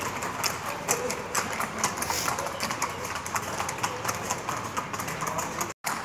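Hooves of ridden horses clip-clopping on a paved road at a walk, many irregular strikes overlapping. The sound drops out for a moment near the end.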